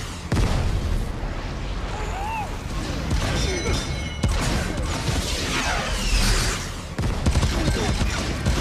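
Dense action-film sound effects: heavy booms and blasts with whooshing sweeps, over a music score, with abrupt cuts between shots.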